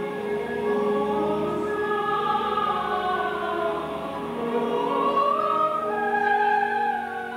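Chorus and symphony orchestra performing a contemporary classical piece, with many voices holding long notes that slowly slide up and down.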